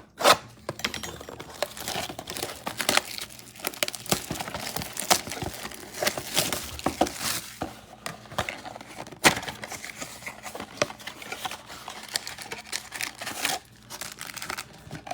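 Plastic trading-card packaging crinkling and tearing as blaster boxes and card packs are opened by hand. The rustling is continuous and irregular, with a couple of sharp snaps, one just after the start and one about nine seconds in.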